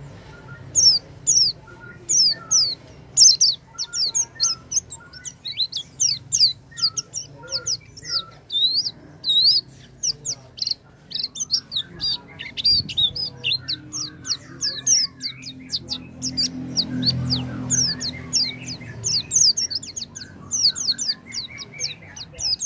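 White-eye (pleci) singing a fast, continuous string of high, thin chirps and twittering notes, several a second, over a steady low hum that grows louder about two-thirds of the way through.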